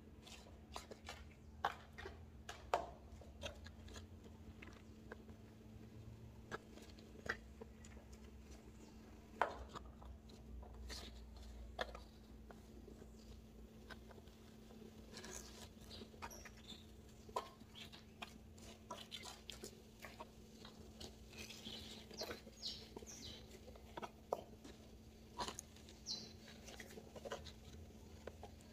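Faint, scattered rustles, scrapes and small clicks of hands working wet potting soil around a kalanchoe in a plastic planter box, over a steady low hum.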